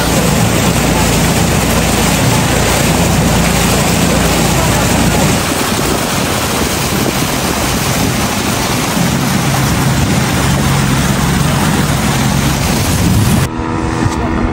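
Motorboat engine running under loud rushing wind and water noise. The sound cuts off abruptly near the end.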